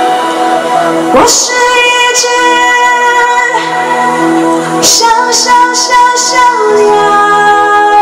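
Live pop band playing a slow song with sustained keyboard chords, a drum-and-cymbal hit about a second in and several lighter cymbal strokes later, with a female voice singing over it.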